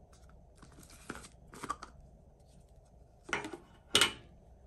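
A cream jar shaped like a reusable coffee cup being handled and opened: a few short scraping, rustling sounds, then a sharp click near the end, the loudest sound.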